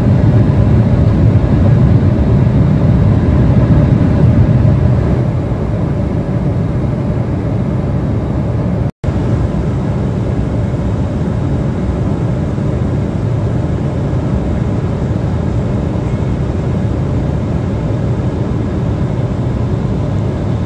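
Steady in-cabin noise of an Embraer 175 airliner in flight: the low rush of airflow and its turbofan engines. The level drops a little about five seconds in, and the sound cuts out for an instant near the middle.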